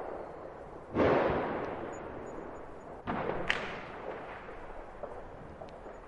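Distant firework explosions: two booms about two seconds apart, each trailing off slowly in echo, the first the loudest. A sharp crack follows about half a second after the second boom.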